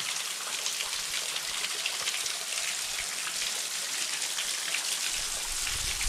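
Low-flow waterfall spattering onto rock and a metal walkway from behind the falling water: a steady hiss full of tiny drops hitting. A low rumble joins near the end.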